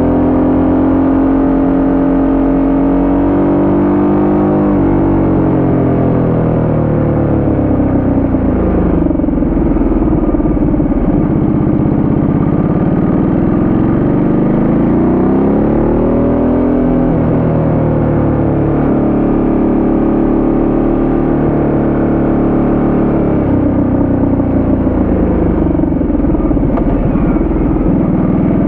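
Ducati Multistrada 1200S twin-cylinder engine heard from on the bike as it rides, its revs falling and climbing again and again through a run of bends.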